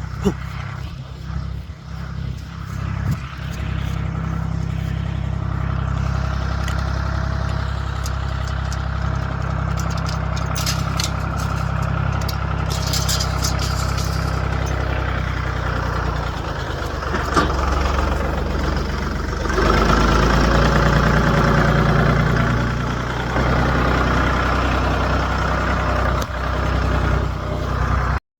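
A vehicle engine running steadily with a low hum, louder from about two-thirds of the way through.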